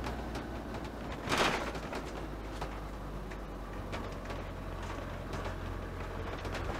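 Motorhome cab while driving slowly: a steady low engine hum with small rattles, the hum getting a little fuller about four seconds in. A short loud burst of noise about a second and a half in.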